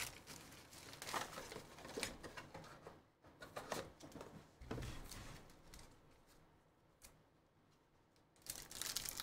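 Foil wrapper of a Panini Prizm football hobby card pack crinkling and tearing as it is handled and opened. There are a few scattered rustles, then louder, denser crinkling near the end.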